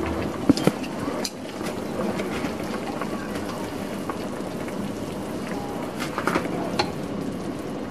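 Shabu-shabu broth of lettuce and pork simmering in a small clay hot pot: a steady bubbling hiss with scattered small pops and clicks.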